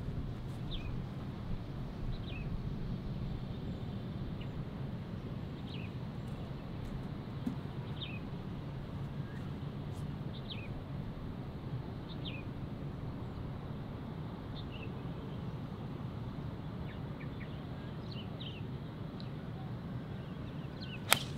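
Birds chirping with short, falling calls every second or two over a steady low rumble. Near the end comes one sharp crack: a golf club striking the ball on a tee shot.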